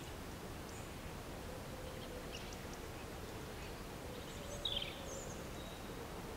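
Outdoor ambience: a steady low background hiss with a few short, faint bird chirps, the clearest about three-quarters of the way through.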